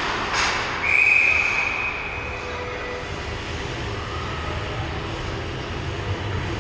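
Ice hockey referee's whistle blown once, about a second in, a single steady blast of about a second that stops play. Just before it comes one clack of a stick or puck, and a low rink rumble runs underneath.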